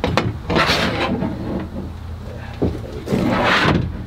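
A shelf scraping and knocking against the plastic wall panels of a storage shed as it is fitted onto its brackets: a sharp click at the start, a short rub just under a second in, and a longer, louder scrape a little after three seconds.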